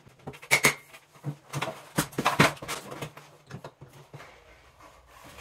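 A handful of sharp knocks and clicks, the loudest about half a second and two and a half seconds in, from parts being fitted into the top of a wardrobe cabinet, with a low steady hum underneath.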